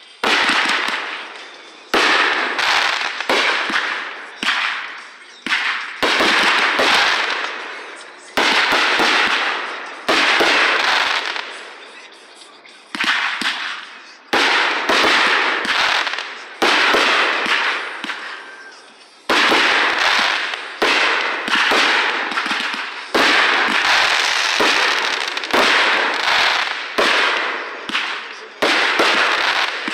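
Consumer aerial fireworks going off in quick succession: a long string of sharp bangs, about one a second, each trailing off quickly, with a couple of brief lulls.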